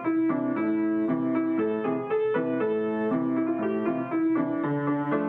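Solo piano playing a steady flow of notes, a few a second, with chords changing every second or so.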